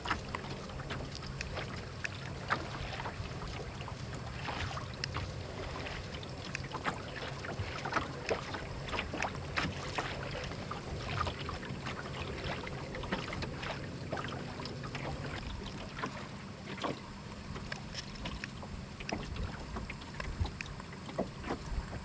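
Water slapping and splashing against the hull of a small wooden sailboat under way, in quick irregular splashes over a steady wash, with wind buffeting the microphone.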